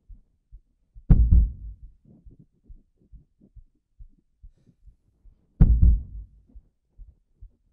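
Cinematic soundtrack: soft low thumps about twice a second, with two loud, deep booming hits about a second in and near six seconds in, each ringing out.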